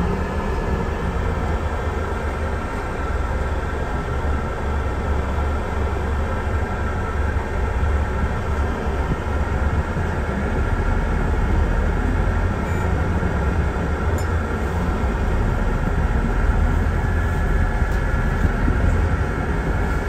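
Steady low rumble of a double-decker bus's engine and running gear heard from inside the upper deck as the bus moves slowly forward, with a faint steady whine above it.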